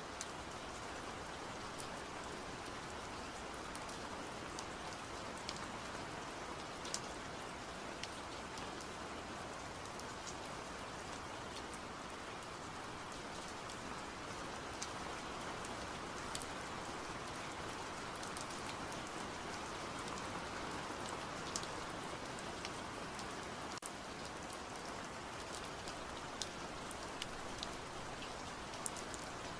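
Steady rain sound: an even hiss with scattered light ticks of drops.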